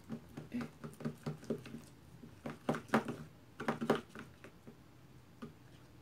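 Plastic spoon stirring yellow-tinted Elmer's glue in a plastic tub just after activator was added, the glue starting to thicken into slime: a run of irregular clicks and taps, busiest about two and a half to four seconds in.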